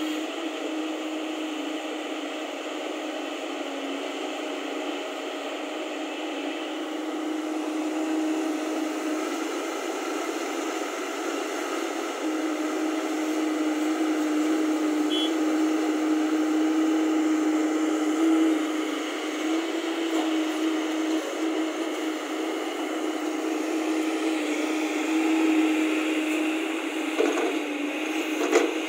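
JCB crawler excavator's diesel engine and hydraulics running steadily as it digs and loads soil, a thin, steady hum that shifts a little in pitch now and then. A few sharp knocks near the end.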